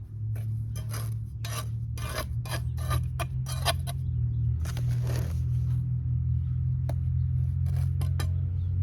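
Mason's trowel scraping and clinking against mortar and concrete block: a quick run of short scrapes in the first few seconds and a few more near the end. A steady low hum runs underneath.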